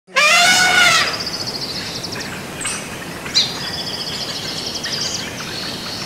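An Asian elephant trumpets once, loud and under a second long, with a brassy call that rises and falls in pitch. Birds then chirp with a fast high trill over the open-air background.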